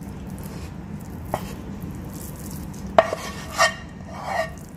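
Cooking utensil scraping and knocking on metal cookware as sticky barfi mixture is scooped out of the pan into a steel plate: a faint click a little over a second in, a sharp clink about three seconds in, then two shorter ringing clinks.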